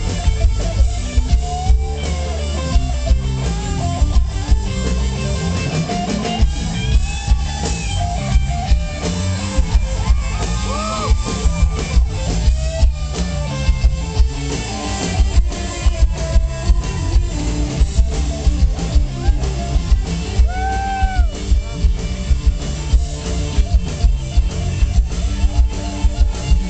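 Live rock band playing an instrumental jam, with an electric guitar lead bending notes over a steady drum beat and heavy bass.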